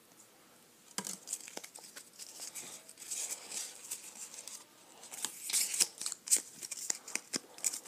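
Pokémon trading cards being handled and slid past one another in the hand, making dry rustling and flicking clicks. It starts about a second in and is busiest in the second half.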